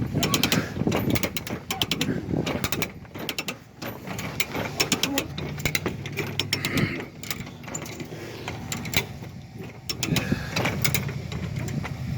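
Hand come-along winch ratcheting in bunches of rapid clicks as its handle is worked, the pawl clicking over the gear while it drags a riding mower up a ramp.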